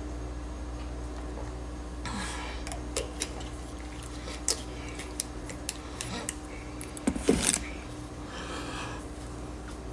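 A steady low hum with scattered sharp clicks, taps and short rustles over it, the loudest a quick cluster of knocks about seven seconds in.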